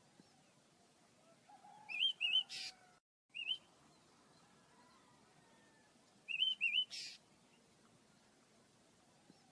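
Pet birds chirping in short bursts of quick curved chirps, about two, three and a half, and six seconds in, with quiet between.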